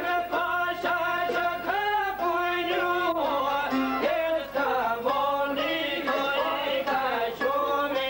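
A voice singing an Albanian folk song in a wavering, gliding line, accompanied by a plucked çifteli, the two-stringed long-necked Albanian lute.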